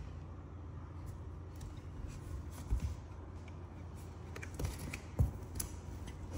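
Scraping and rustling as a baby monkey's hands rub against the cardboard box wall and a loose strip of plastic, over a low steady hum, with two soft thumps about three and five seconds in.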